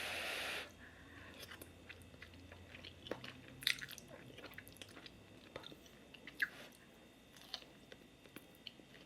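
Close-miked chewing of fried tofu skin. It opens with a brief loud crunch, then goes on as quiet chewing with a few soft clicks.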